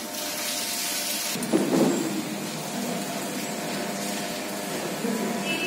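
Horizontal band sealer running: a steady motor hum with a high hiss that stops about a second and a half in, then a short louder burst of noise.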